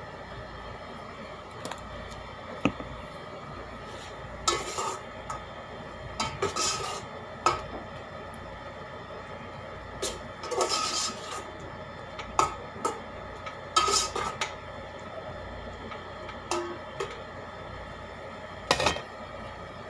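A metal utensil clinking and scraping against a cooking pot in irregular strokes, several of them followed by a short ring.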